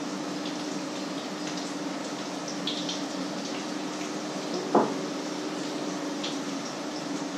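Food frying in a pan on the stove: a steady sizzle with scattered small pops, over a steady low hum. One sharp knock about five seconds in.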